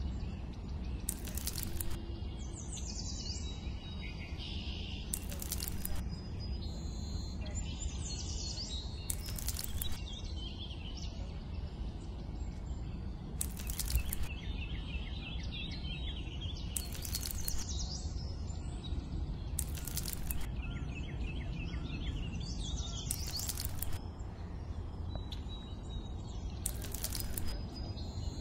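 Small birds chirping over a steady low outdoor background noise, with a short rustle about every three to four seconds.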